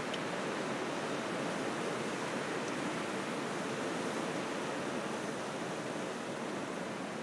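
Blizzard wind blowing steadily through pine boughs and bare branches, driving snow before it: an even, unbroken rush of noise.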